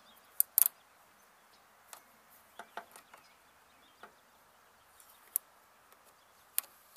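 Scattered sharp clicks of pliers and spring hose clamps as the clamps are slid back over the fuel-line ends of a new inline fuel filter, the loudest pair about half a second in and single clicks every second or so after.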